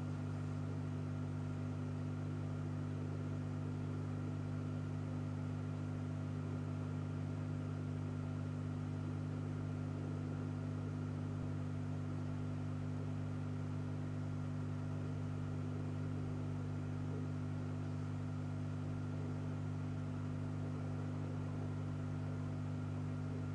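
Steady low electrical hum with a few fainter higher tones over a light hiss, unchanging.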